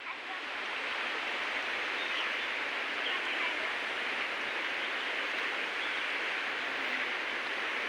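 Flowing water rushing steadily, an even hiss-like noise with no changes.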